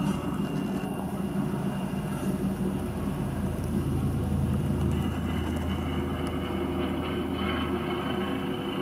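Airbus EC135 air-ambulance helicopter flying low on its landing approach. The rotor beats steadily under a thin high whine, a little louder midway.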